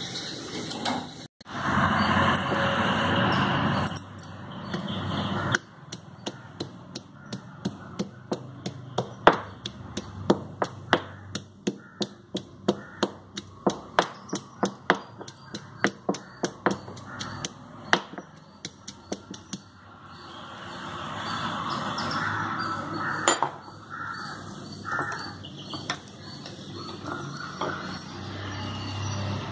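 A pestle pounding in a stone mortar: a long run of sharp knocks, about two to three a second, that give way to a steadier noise near the end. A few seconds of loud rushing noise come before the knocks begin.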